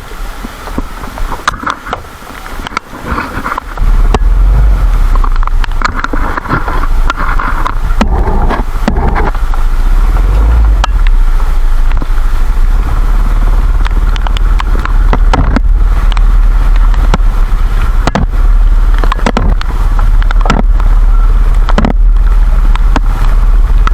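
Storm at a rain-soaked campsite: heavy rain ticking and pattering, and from about four seconds in a loud, steady deep rumble of wind buffeting the microphone.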